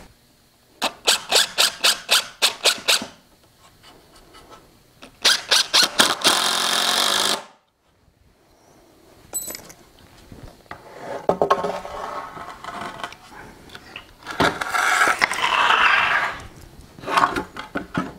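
Cordless driver driving screws into pine truss boards in several bursts: first a quick run of sharp pulses, then another that settles into a steady run and stops suddenly, with more runs and short pulses later on.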